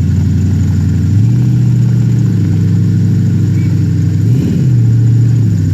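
Loud off-road 4x4 engine running. Its pitch steps up about a second in and holds steady, with a quick brief rev just after the four-second mark.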